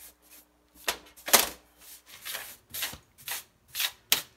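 A hand brushing and scraping across a metal workbench top in a run of short strokes, about two a second, sweeping away rubber crumbs drilled out of a steering-rack bushing.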